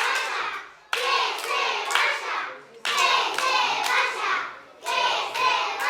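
A group of voices chanting "¡Que se vaya!" over and over, with hand claps keeping time.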